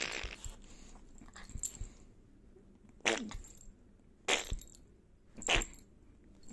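Small dog giving short, sharp play barks while play-fighting: one at the start, then three more about a second apart from about three seconds in, each dropping a little in pitch, with blanket rustling between them.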